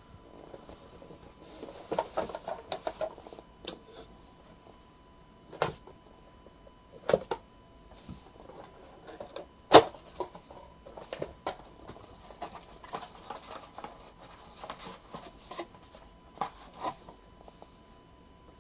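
Packaging around an autographed baseball being handled and opened by hand: crinkling and rustling, broken by several sharp clicks and snaps, the loudest a little before halfway.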